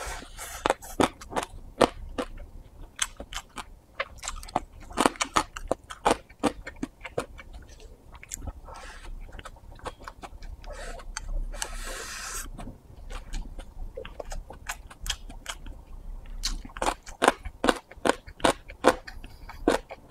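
Close-miked chewing of a mouthful of egg fried rice: wet mouth clicks and smacks, irregular and many, with a brief hiss about twelve seconds in.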